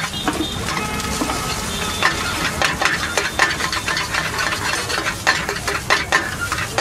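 Food frying with a steady sizzle in a hot wok while a metal spatula stirs and scrapes it, clinking irregularly against the pan.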